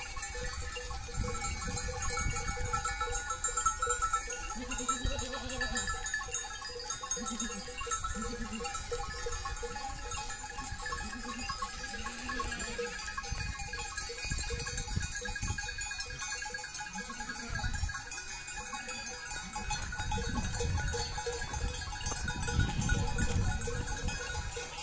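A flock of sheep bleating, with repeated calls throughout.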